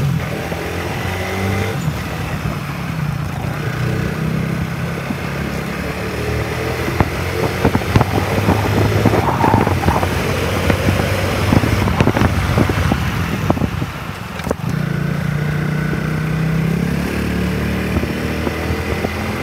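Yamaha motorcycle engine running steadily while riding along a street, with wind rushing and buffeting on the microphone. The level dips briefly about three-quarters of the way through.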